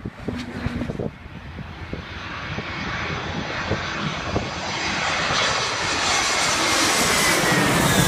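Airbus A320's IAE V2500 turbofans on final approach, growing steadily louder as the jet comes in low overhead. The engine whine falls slightly in pitch near the end as it passes. Wind buffets the microphone in the first second.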